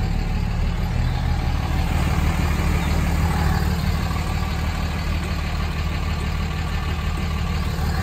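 Truck engine idling, a steady low hum.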